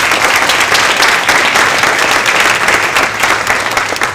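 Audience applauding, a dense crackle of many hands clapping that thins out near the end.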